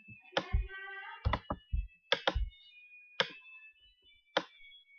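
Computer mouse clicking: a string of about ten sharp clicks, several in quick pairs, as ports are selected and dragged in the program.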